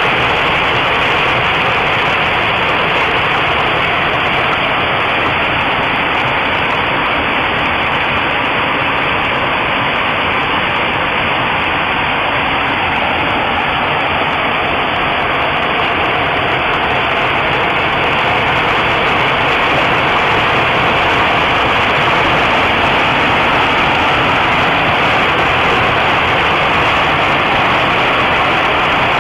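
Heavy hailstorm: hail and rain pelting the roofs and ground in a steady, loud, unbroken din.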